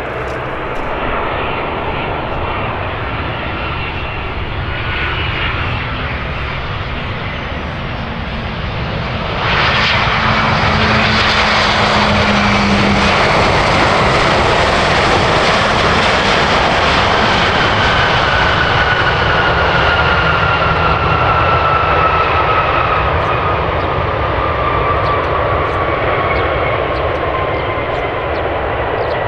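Airliner engines running at an airport. A steady roar becomes suddenly louder about a third of the way in, and a thin whine slowly falls in pitch through the second half.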